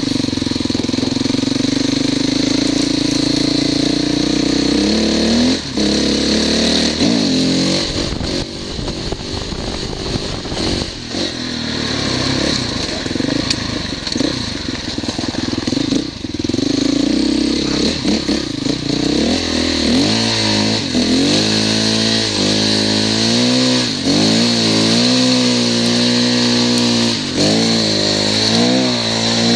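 Motorcycle engine running under load, its pitch rising and falling again and again as the throttle is opened and closed, with quick repeated revs in the last part, over a steady high hiss.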